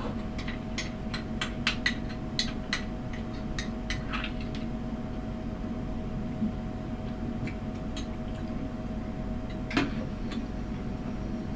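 A metal spoon clinks against a ceramic bowl in a run of light clicks over the first few seconds, then one louder knock near the end as the bowl is set down on the counter. A steady hum runs underneath.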